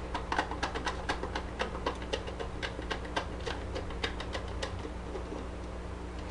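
Hand screwdriver turning a screw into the metal front plate of a Super 8 film projector: a run of small irregular clicks and ticks, several a second, thinning out in the last second or so.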